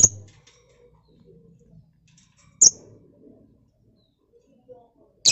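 Caged lovebirds giving short, sharp, high-pitched chirps, one every two to three seconds.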